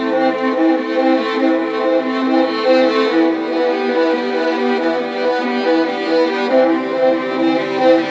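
Background music of bowed strings, with a violin carrying long, sustained notes.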